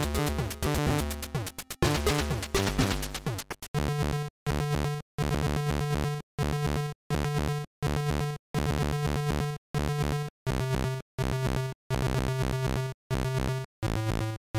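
ZX Spectrum AY sound-chip music. For about the first four seconds it is a dense jumble of electronic tones with falling pitch sweeps. Then it settles into a repeating pattern of short bass and chord notes, broken by abrupt silences about every three quarters of a second.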